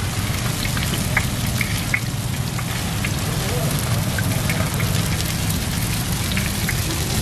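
Battered fritters deep-frying in a large wok of hot oil: a dense, steady sizzle full of small crackling pops, over a low steady hum.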